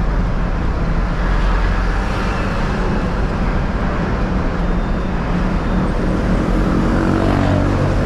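An old truck's engine idling steadily with a low, even drone, with road traffic around it.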